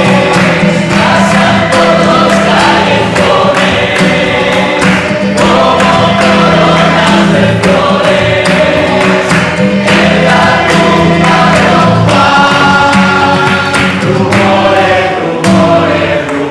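A mixed group of men and women singing together in chorus, with hand claps keeping a steady beat.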